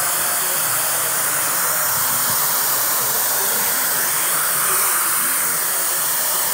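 Stylecraft Cosmic blow dryer with a diffuser attachment running steadily, a constant rush of blown air and motor hiss.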